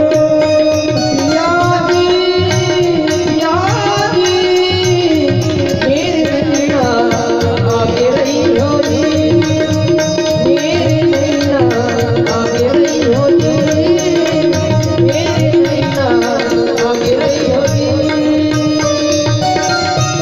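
Music: a melody that glides and bends between notes over held drone tones and fast, dense drum strokes.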